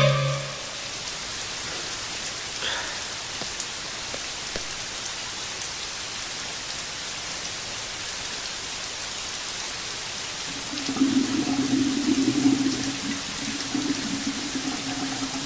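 Steady hiss of falling rain, with a low wavering hum joining about ten seconds in.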